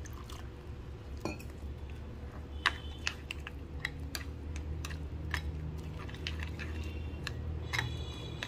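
Metal spoon stirring a wet semolina and curd batter in a bowl: soft squelching, with irregular clicks and taps of the spoon against the bowl, most frequent in the middle.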